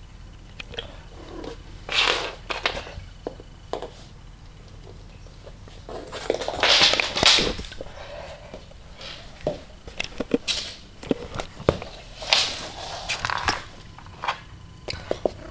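A cat playing with a roll of sticky tape on a wooden floor: scattered light clicks and knocks, with three longer bursts of rustling and scuffling.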